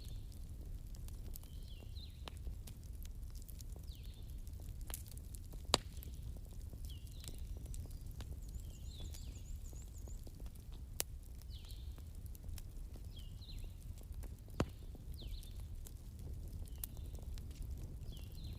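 Bonfire crackling: a steady low rumble under scattered sharp snaps, with a few louder pops. Short high chirps come about once a second behind the fire.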